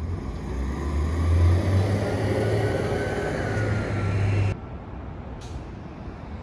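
Street traffic with a heavy motor vehicle's engine drone passing close, loudest about a second and a half in. About four and a half seconds in it cuts off abruptly to a quieter, steady traffic hum.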